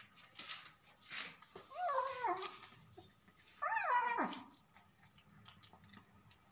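Kitten meowing twice, two high cries that rise and fall in pitch, about two seconds apart.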